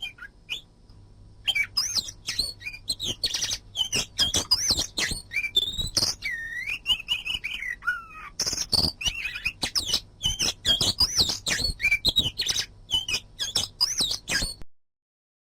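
Oriental magpie-robin (kacer) singing a fast, varied run of chirps and whistles, with a longer falling whistle in the middle. The song cuts off abruptly near the end.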